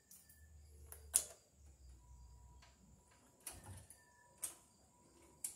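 Sharp clicks and taps of a hand tool and copper wire against a metal breaker panel as the ground wire is set into the ground bar: a loud click about a second in, then three more about a second apart near the end.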